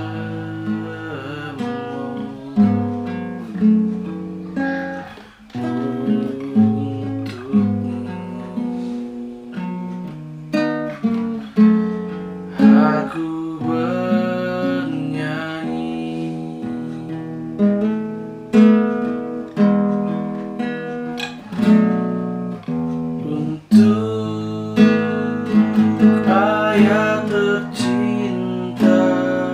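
Nylon-string classical guitar played in picked and strummed chords, with a man singing along at times.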